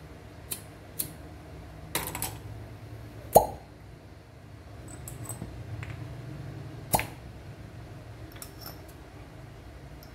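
Glass cupping cups clinking and tapping against each other as they are handled: a scattering of sharp clicks with short ringing, the loudest about three and a half seconds in and another near seven seconds.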